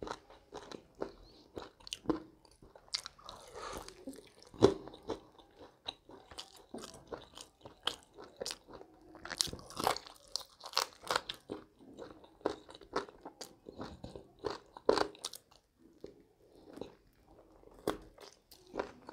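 Close-miked eating of a sauced fried chicken wing: irregular crunchy bites and chewing.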